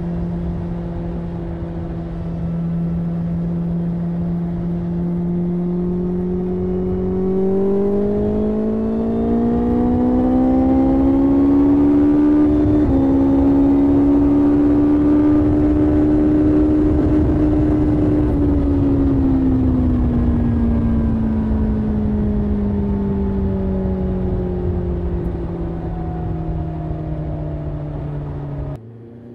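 BMW S1000XR's inline-four engine through an Akrapovic exhaust with the dB-killer fitted, on an engine still in break-in. It starts at a steady cruise, then the revs climb smoothly for several seconds, hold high, and ease back down to a steady cruise. Near the end the throttle is shut and the note drops away suddenly.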